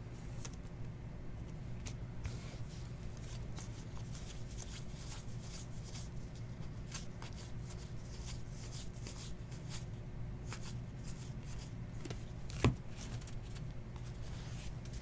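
Baseball trading cards being handled and flipped through by hand: soft, repeated ticking and riffling of card edges against each other, over a low steady hum. One sharper click comes near the end.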